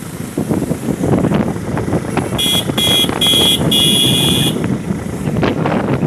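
Wind buffeting the microphone of a helmet camera on a moving motorcycle, with a vehicle horn beeping four times in the middle, the last beep the longest.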